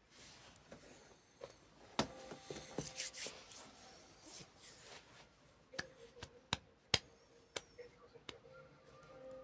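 Several sharp clicks and taps at irregular intervals, with a faint steady hum under the second half.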